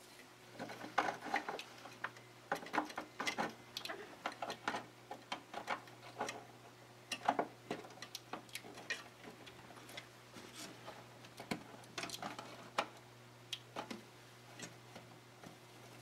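Sleeved PSU extension cables and their plastic connectors being handled and pushed through a PC case's cable grommets: irregular clicks, taps and rustles, with a low steady hum underneath.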